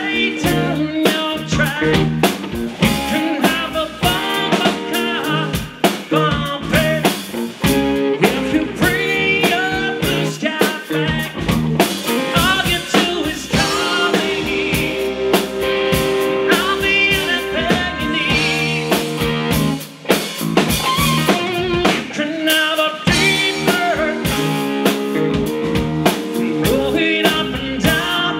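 A live rock trio plays: drum kit, electric bass and electric guitar, with a man singing lead over them.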